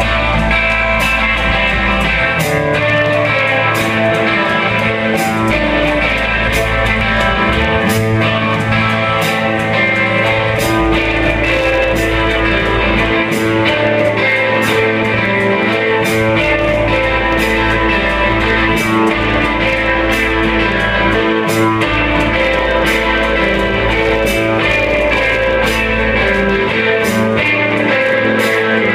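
Live rock band playing loud: electric guitars and bass over a drum kit keeping a steady beat.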